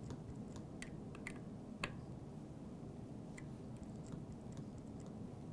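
Light scattered clicks of small metal hardware on a bicycle V-brake as its tension adjustment screw is worked with a hand tool, one sharper click a little under two seconds in, over a low steady room hum.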